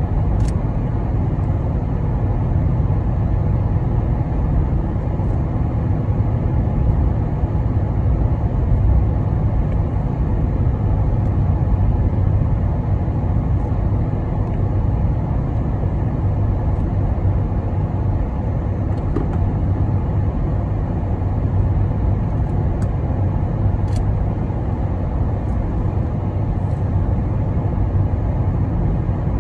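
A car driving at a steady speed on an asphalt road: an even low rumble of tyres and engine, with a couple of faint clicks.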